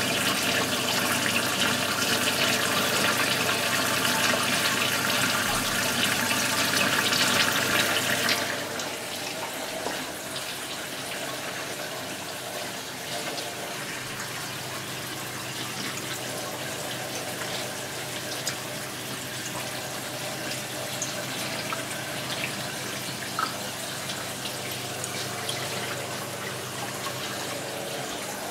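Aquarium overflow water spraying from a drilled pipe and splashing through bio-balls in a DIY sump, a loud steady rush. About eight seconds in it drops suddenly to a quieter steady flow of water with a low steady hum underneath.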